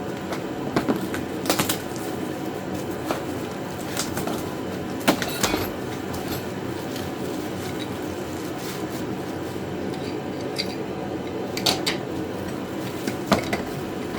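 Scattered clanks and knocks as parts and hardware of a steel welding cart are handled and set down, about seven in all, over a steady background hum.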